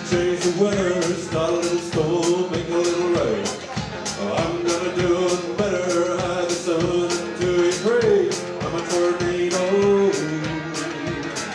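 Live country-rock band playing: strummed acoustic guitar, electric guitar, bass and drums keeping a steady beat of about two hits a second, with a line of long held, sliding notes over the top.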